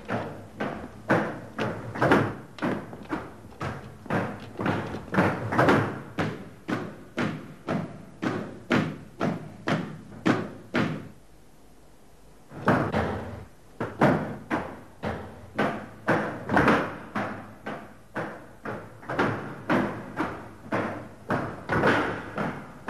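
Footsteps of boots on a hard floor, about two steps a second, echoing in a corridor. They stop for a moment about eleven seconds in, then carry on.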